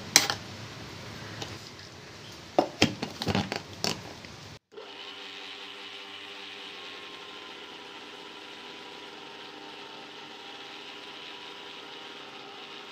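A few knocks and clatters as the mixer-grinder jar is closed, then an Indian mixer grinder running steadily, grinding roasted cashew nuts, which must keep grinding until their oil comes out and the powder turns to a paste.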